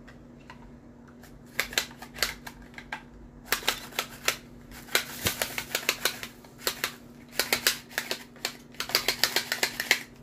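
Bell pepper being sliced on a handheld Tupperware mandoline: quick runs of clicking strokes as the plastic hand guard pushes the pepper across the blade, beginning about a second and a half in, with short pauses between runs.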